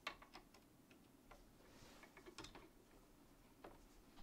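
Faint, scattered clicks and light taps from PTFE tubes being handled and seated in the plastic push-fit couplings of a 3D printer's toolhead.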